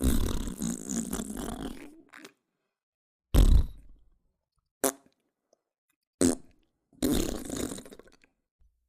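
A run of five fart sound effects with silent gaps between them. A long one fills the first two seconds, a short loud deep one comes just after three seconds, two very brief ones follow near five and six seconds, and a longer one comes near the end.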